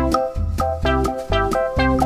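Background music: a bright keyboard-style tune of quick pitched notes over a steady bass.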